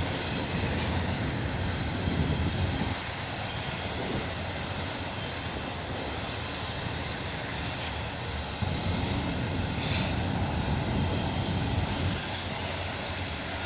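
CN intermodal freight train's container flat cars rolling slowly past, a steady rumble of wheels on the rails.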